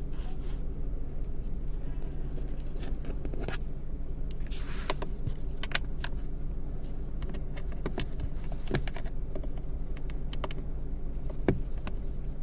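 A car running with a steady low hum, overlaid by scattered sharp clicks and light rattles and a brief hiss about five seconds in.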